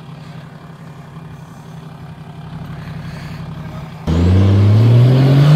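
Toyota Land Cruiser 80-series engine idling steadily, then about four seconds in it comes up loudly under throttle, its pitch rising steadily as the truck pulls away up a steep dirt slope.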